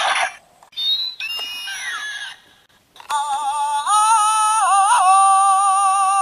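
Intro sound effects and jingle: a short noisy roar-like burst at the start, a falling whistling cry about a second in, then from about three seconds a long held sung note that steps up in pitch and wobbles once.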